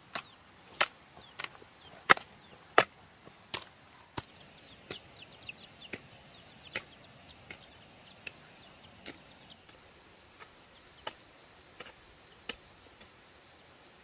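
Hand hoe chopping into loose clay soil: sharp strikes about every two-thirds of a second, loud for the first four seconds, then fainter and more spaced out. Young chicks cheep in a run of short, high, falling peeps through the middle.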